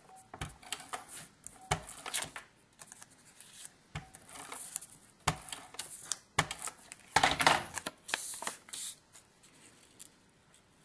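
Handheld adhesive tape runner laying glue onto a paper oval, with the paper handled and pressed down: scattered small clicks and short rasps, the longest rasp about seven seconds in, dying away about nine seconds in.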